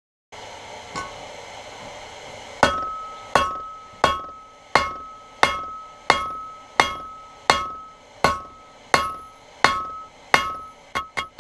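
Blacksmith's hammer striking hot iron on an anvil in a steady rhythm, about one blow every 0.7 seconds, each blow ringing with a clear metallic tone over a steady rushing background. Near the end the blows turn to quicker, lighter taps, about three a second.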